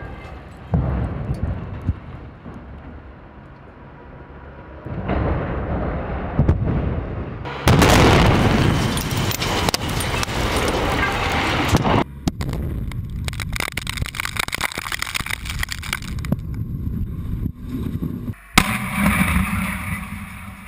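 Explosive demolition: rumbling crashes of concrete structures collapsing, then a loud rush of dust and debris blowing over a close camera. Near the end there is a sharp blast from charges firing at the legs of a steel water tower.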